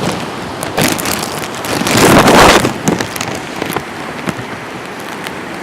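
Hurricane wind gusting through trees with rain, buffeting the microphone; a strong gust swells about two seconds in and then eases.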